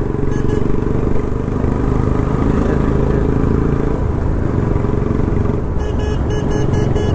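Royal Enfield Bullet's single-cylinder engine running steadily while riding. Two short high beeps sound about half a second in, and a quick run of about six more comes near the end.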